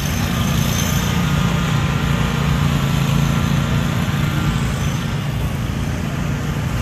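An engine running steadily: a constant low hum over a wash of background noise, with no break or change.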